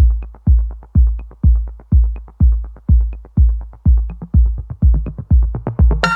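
Electronic dance music: a heavy, steady kick-drum beat of about two beats a second with light hi-hat ticks, with synth chords coming in at the very end.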